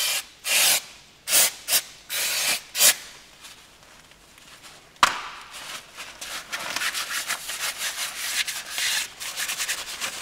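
Aerosol brake cleaner sprayed onto a brake disc in about six short hissing bursts during the first three seconds. After a click about five seconds in, a paper towel rubs steadily over the disc, wiping it clean.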